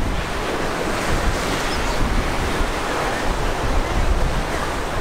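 Gulf of Mexico surf washing steadily, with wind buffeting the microphone in a low rumble.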